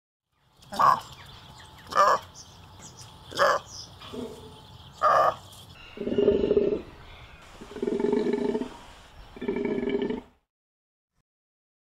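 Golden takin calling: four short, sharp calls one to two seconds apart, then three longer, lower calls, each about a second long.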